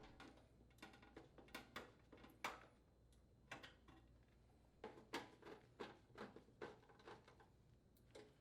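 Faint, irregular clicks and taps of metal parts as the sheet-metal air baffle is set back into the furnace blower housing and its screws are fitted.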